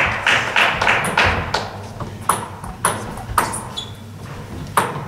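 Table tennis ball bouncing between points: a few sharp pings roughly half a second apart, with one more near the end, after some softer noisy bursts in the first second or so.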